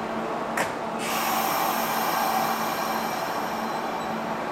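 Kintetsu limited express electric train standing at the platform before departure, its equipment giving a steady low hum. About half a second in there is a click, then a hiss of compressed air starts about a second in and fades over the next few seconds.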